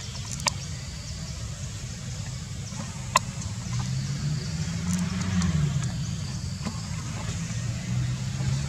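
Low, steady engine rumble, like a motor vehicle running nearby, growing louder in the second half. Two short sharp clicks come about half a second and three seconds in.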